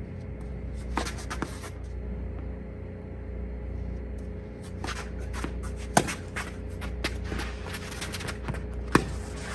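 Tennis rally: a string of sharp knocks as rackets strike the ball and it bounces on the court. The loudest hits come about six and nine seconds in, with shoes scuffing the court between them over a steady low hum.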